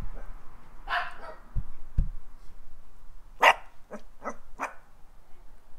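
Small-breed puppy barking: one bark about a second in, then a loud bark about three and a half seconds in followed quickly by three smaller ones.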